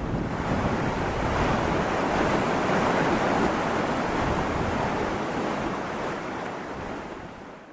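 Whitewater rapids on a river rushing steadily, fading out near the end.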